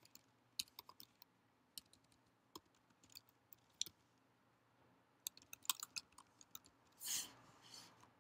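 Quiet, irregular keystrokes on a computer keyboard as a line of code is typed, the clicks coming in small clusters with pauses between. A short soft hiss comes about seven seconds in.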